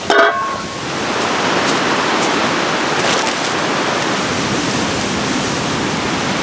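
Fish soup boiling hard in a cast-iron cauldron over a wood fire: a steady rushing bubbling with a few crackling pops from the fire. A short ringing clink sounds at the very start.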